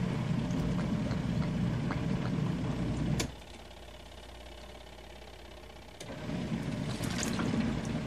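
Panda portable twin-tub washing machine's wash motor churning clothes in water, stopping about three seconds in and starting again three seconds later, as the wash swishes the load back and forth.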